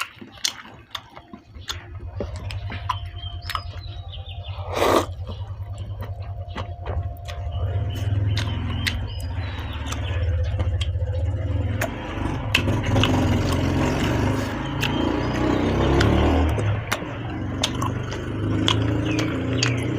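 A motor vehicle's engine rumbling nearby, a steady low drone that builds up about two seconds in and grows louder through the second half, with scattered sharp clicks and one brief loud rush of noise about five seconds in.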